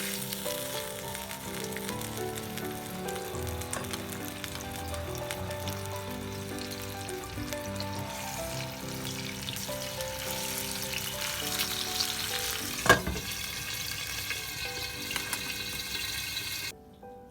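Food frying in a pan, a steady sizzle, with one sharp knock about two-thirds of the way through; the sizzle cuts off suddenly near the end. Soft piano music plays underneath.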